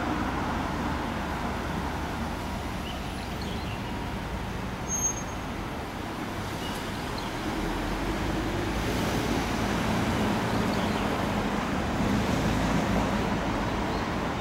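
Street traffic noise: a steady rumble of passing cars that grows a little louder about halfway through.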